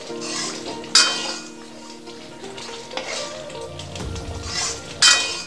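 A spoon stirring and scraping through simmering potato gravy in a nonstick pan, striking the pan sharply about a second in and again near the end, over a light sizzle.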